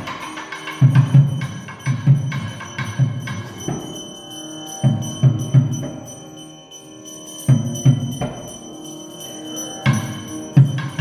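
Live ritual percussion music: a drum beating a quick rhythm of about two to three strokes a second over a steady metallic ringing. Around the middle the drum drops out while a held, pitched melody sounds, then the beating resumes.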